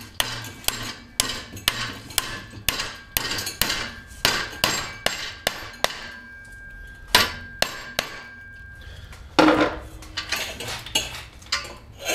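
Hammer striking a 5/16-inch steel rod clamped in a bench vise, bending it over into a belt stay. Sharp metallic blows come about two a second, each ringing briefly, with a pause about six seconds in and a louder clatter about nine seconds in.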